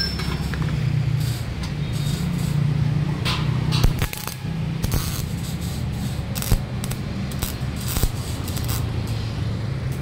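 Stick (arc) welding on a steel stair frame: a continuous crackling hiss from the arc over a low hum, with a few sharp clicks.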